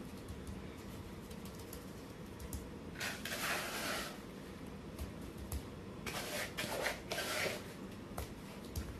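Gritty scraping and rustling of plaster-and-sand matrix being worked in a plastic tub, in two bursts about three and six seconds in.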